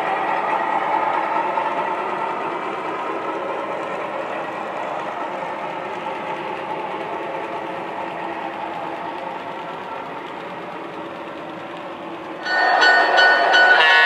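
O-gauge model freight cars rolling past on three-rail track, a steady rumble and clatter of wheels that slowly fades. About 12 seconds in, a much louder sound of several steady tones cuts in: a model diesel locomotive's sound-system horn.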